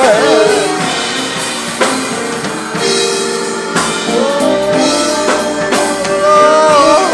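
Live gospel song with a band and drum kit: a singer ends a wavering held note, the band plays on with drum hits, and from about four seconds in the singer holds another long note with vibrato.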